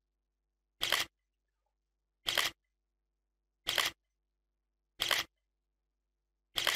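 Camera shutter click sound effect, heard five times about a second and a half apart, with dead silence between the clicks: the signal of screenshots being taken.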